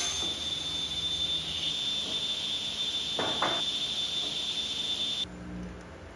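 Felder sliding table saw running free with a steady high whine over a low hum, with a short burst of noise about three seconds in as the walnut board is lifted off the table. The whine cuts off suddenly about five seconds in, leaving a quieter low hum.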